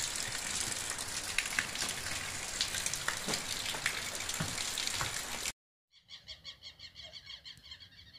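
Steady rain with water pouring off a roof edge onto leaves: an even hiss with scattered dripping taps. The sound cuts off suddenly about five and a half seconds in and is followed by faint, rapid, evenly pulsed chirping from an animal.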